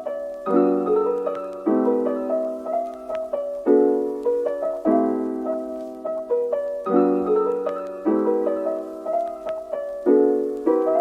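Soft background piano music: gentle chords struck and left to ring, a new chord every second or so.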